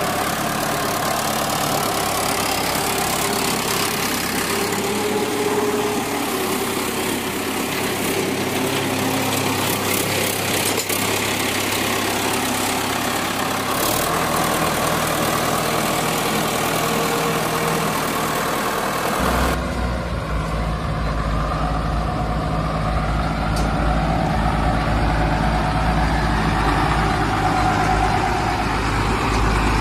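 Recorded vehicle engine idling steadily, used as a sound effect. About two-thirds through it changes to a deeper, heavier rumble.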